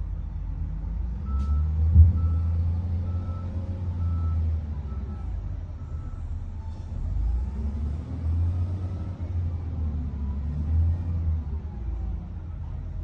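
SDLG wheel loader's diesel engine running and rising under load as it works, with a reversing alarm beeping about twice a second for several seconds near the start. A single sharp knock comes about two seconds in.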